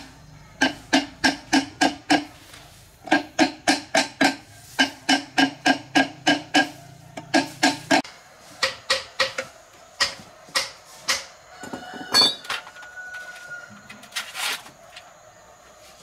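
Hammer striking metal, each blow ringing briefly, in quick runs of about three blows a second. After about eight seconds the ringing drops away and the blows come sparser and duller.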